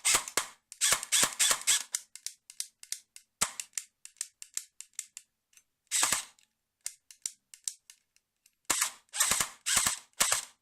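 Colt M4A1 airsoft electric gun firing repeated single shots, each a sharp crack. In the middle there is a stretch of faint lone clicks, with only one shot among them about six seconds in, before another quick run of shots near the end. The faint clicks fit the gun's misfire fault: in single-shot mode the trigger clicks but the gun does not fire.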